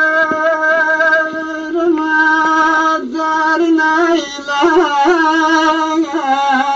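A solo voice singing a Turkish folk song without words, holding one long note, then breaking into quick ornamented turns about four seconds in and settling on a lower note near the end.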